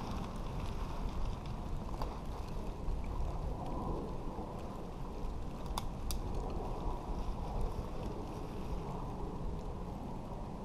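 Steady low rumble of wind on the microphone, with a nylon tarp rustling as it is pulled and tied between trees. Two sharp clicks come about six seconds in.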